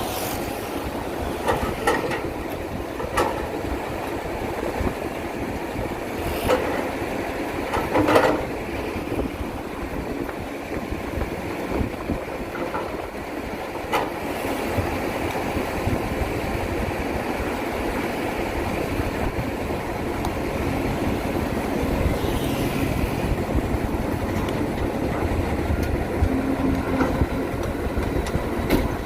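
Excavator's diesel engine running steadily while digging, with sharp knocks now and then, the loudest about eight seconds in.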